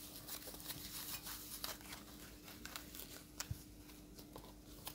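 Thin paper wrapping crinkling and rustling as it is pulled off a stainless steel angle valve. It is dense at first, then thins to a few separate crackles and clicks.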